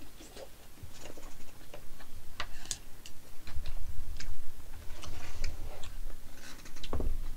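Close-miked eating: chewing and mouth smacks on a mouthful of jjajang rice, with scattered sharp clicks. A dull knock near the end as a ceramic bowl is set down on the table.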